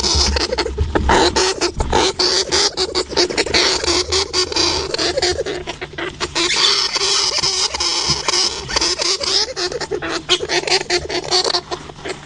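A hamster moving about inside a jar: dense, irregular clicks and a scratchy hiss, with no let-up.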